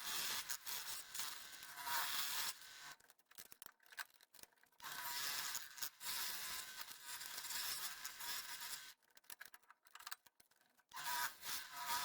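Scroll saw cutting wood, a steady hissing rasp. It stops twice for about two seconds, with a few clicks in the gaps.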